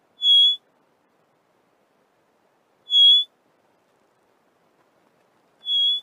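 Cape Longclaw giving its single-note call: three short, clear whistles, each on one steady high pitch, a little under three seconds apart.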